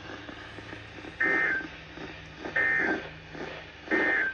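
Three short bursts of Emergency Alert System (SAME) digital data tones from a weather-radio receiver, about a second and a half apart over faint radio hiss. Coming right after the warning message ends, they are the end-of-message code.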